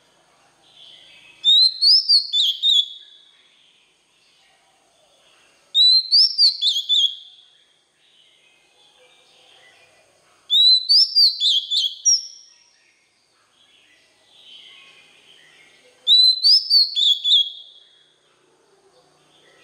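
Oriental magpie-robin singing: four loud phrases of rapid, clear whistled notes, each about a second and a half long and coming about every five seconds, with softer twittering between them.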